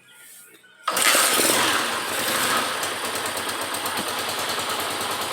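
The freshly rebuilt single-cylinder engine of a KS motorcycle is started about a second in, then settles into a steady idle. It runs without the hissing bearing noise it had before, because the crankshaft bearings have been replaced.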